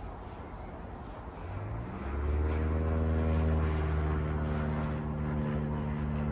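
Light propeller aeroplane flying overhead. Its engine hum comes in about two seconds in, rises briefly in pitch, then holds steady.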